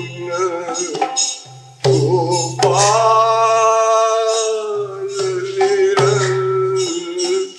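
Man singing a Hindi devotional pada (kirtan), holding one long, slightly wavering note for about four seconds in the middle, over instrumental accompaniment.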